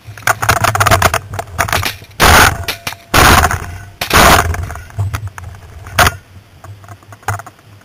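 Three very loud 12-gauge shotgun shots about a second apart from a Beretta Xtrema 12/89 semi-automatic. Before them comes a clatter of the gun being swung up, and a fourth sharp bang follows about two seconds later.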